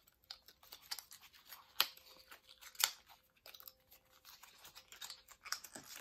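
A small cardboard cosmetics box being handled and opened by hand, with scattered clicks, scrapes and taps of fingers and flaps, and two sharper clicks about two and three seconds in. The highlighter compact is being worked out of its snug-fitting box.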